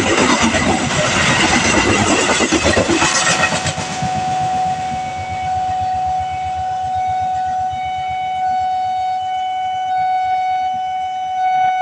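A train passing the crossing, loud for the first three seconds or so, then fading. Under it and then alone, the railway level-crossing alarm siren holds one steady tone, cutting off suddenly at the end.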